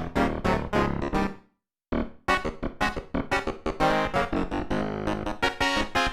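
Roland D-550 linear-arithmetic synthesizer playing a preset with sharply struck, piano-like notes in quick chords and runs. The playing stops about a second and a half in and starts again half a second later.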